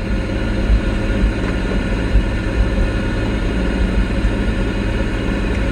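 Pontiac Fiero engine running steadily, a low even hum heard from inside the cabin.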